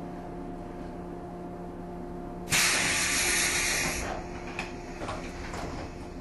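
Steady hum of a JR 115-series electric multiple unit. About two and a half seconds in comes a sudden loud hiss of compressed air from the train's pneumatic equipment, strongest for about a second and a half, then fading away with a few soft clicks.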